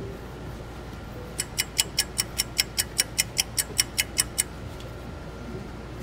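A rapid, even series of about fifteen sharp high clicks, about five a second, lasting about three seconds.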